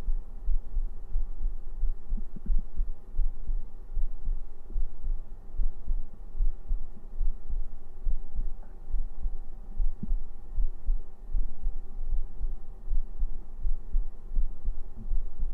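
A man's heartbeat, picked up close by a microphone, beating in a steady, even rhythm of low thumps.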